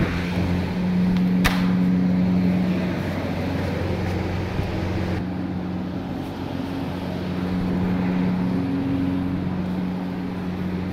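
A steady low hum with a faint rushing noise behind it, and a single sharp click about a second and a half in.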